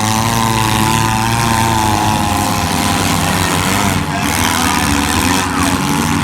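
Several four-cylinder demolition derby cars' engines running loud and revving, their pitch wavering up and down throughout.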